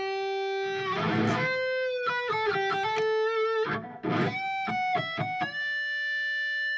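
Eight-string electric guitar playing the song's chorus melody: a line of held, singing single notes, broken by two brief heavier hits, about a second in and about four seconds in, and ending on one long sustained note.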